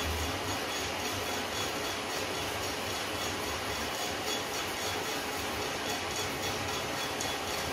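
Small drum coffee roaster running steadily mid-roast, its rotating drum tumbling the beans over a low hum from the motor and fan. The beans are still before first crack, so no cracks sound yet.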